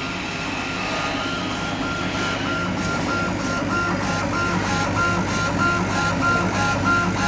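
The CO2 laser engraver's head drive whines as it raster-engraves, sweeping back and forth across the MDF. The whine switches on and off and jumps between two pitches about three times a second, with each pass, over a steady low machine hum.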